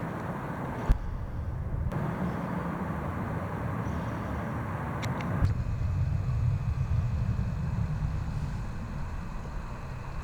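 Strong wind buffeting the microphone: a low, gusty rumble with a sharp knock about a second in. The sound changes abruptly about one and five and a half seconds in.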